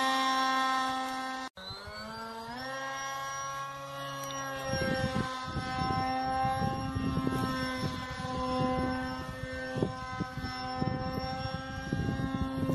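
Electric motor and propeller of a foam RC plane running with a steady whine, which cuts out briefly about a second and a half in, then returns and rises in pitch as the throttle opens. From about five seconds in, wind rumbles on the microphone under the whine.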